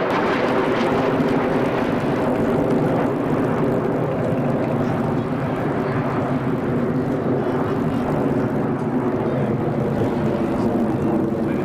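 Jet engine noise from Red Arrows BAE Hawk T1 jets in display flight overhead, heard as a steady, loud rush with a low hum running under it.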